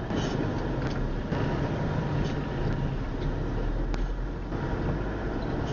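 Steady road and engine noise of a car driving in town traffic, picked up by a dash cam inside the car, with a few faint ticks.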